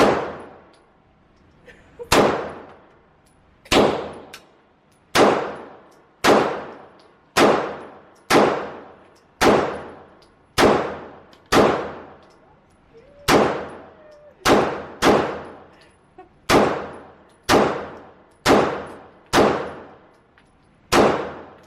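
Glock 19X 9mm pistol fired in a steady string of about eighteen shots, roughly one a second, each shot trailing off in a short echo.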